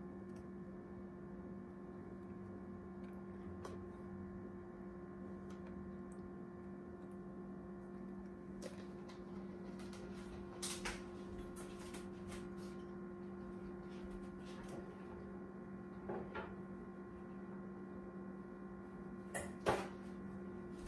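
Steady low electrical hum made of several tones, with a few faint clicks and knocks of things being handled, the loudest two near the end.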